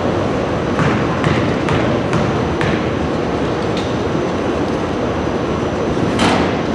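Basketball gym ambience during a game: a steady hubbub of the hall, with scattered sharp knocks through it.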